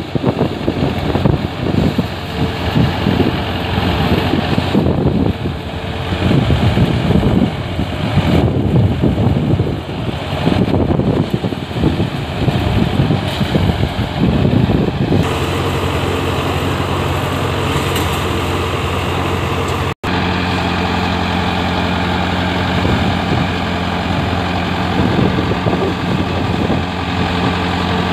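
Tractor engine running steadily as it drives a paddy thresher, with the thresher's drum and blower running as rice bundles are fed in. A gusty rushing noise lies over it for the first half, and the sound drops out for an instant about twenty seconds in.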